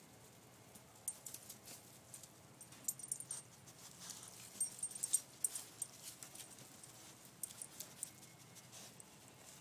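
Dry hay in a nest box rustling and crackling in short, irregular bursts as young rabbit kits shuffle and climb over one another, busiest about halfway through.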